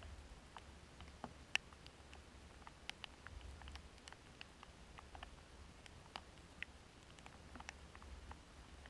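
Scattered raindrops landing close to the microphone: single irregular ticks, a few a second, one louder about one and a half seconds in. A faint low rumble comes and goes underneath.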